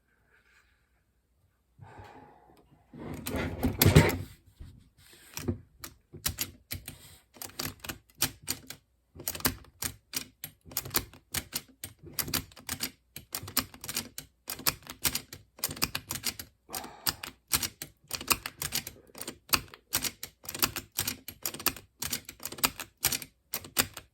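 Small parts of a floppy drive mechanism being handled: a loud knock and rustle about three seconds in, then a quick, uneven run of sharp clicks and scrapes, a few a second.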